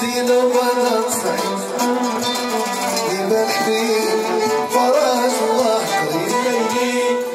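Live Moroccan chaabi music, amplified through loudspeakers: a male singer on a microphone over a band of violins and keyboard, playing a continuous melody.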